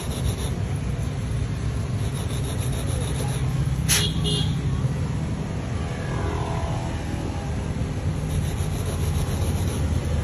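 A hand alloy file rasping across a worn Zippo flint wheel to recut its teeth, over a steady low rumble. A sharp click about four seconds in.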